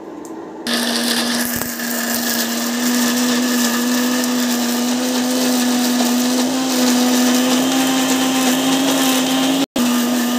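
Kitchen mixer grinder switching on about a second in and running steadily, its motor whirring at a fixed pitch while it wet-grinds coconut-tamarind chutney in the closed jar. The sound breaks off for an instant near the end.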